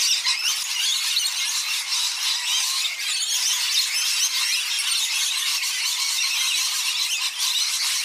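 A flock of rainbow lorikeets calling all at once: many shrill calls overlapping into an unbroken chatter.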